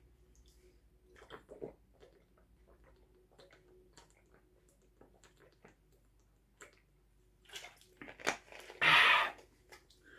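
A man drinking from a plastic bottle: soft gulps, mouth sounds and light bottle clicks, then a short, loud, breathy burst near the end as he lowers the bottle.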